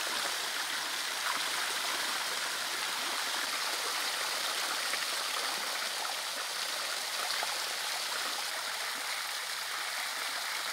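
Spring water running steadily from a bamboo spout and down a small stone waterfall into a shallow pool.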